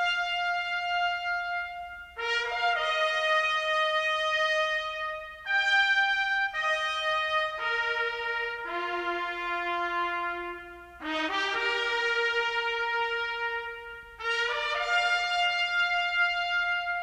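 Background music played on brass: slow, held notes sounding in harmony, with a quick run of notes leading into some phrases.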